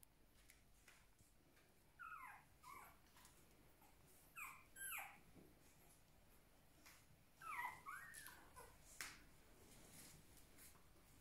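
Young puppies whimpering: faint, short, high squeals that fall in pitch, coming in three little clusters about two seconds, four and a half seconds and seven and a half seconds in.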